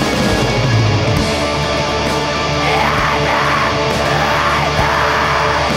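Black metal recording: distorted electric guitars and drums playing a dense, unbroken wall of sound, with harsh yelled vocals wavering over it from about halfway through.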